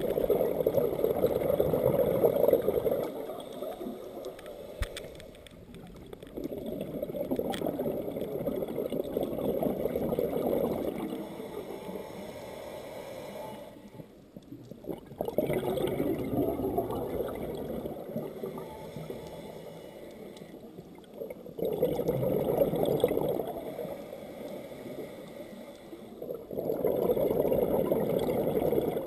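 Scuba regulator exhaust bubbles from the diver's breathing, heard underwater: five long, bubbling exhalations, one every five or six seconds, with quieter pauses for each inhalation between them.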